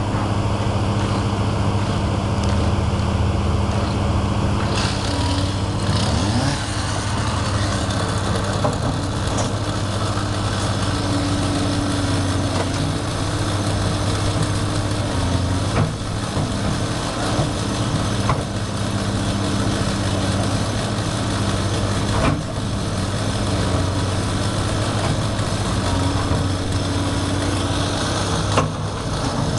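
Caterpillar 330D L excavator's diesel engine running steadily, with a few sharp knocks as the bucket strikes the concrete sound wall.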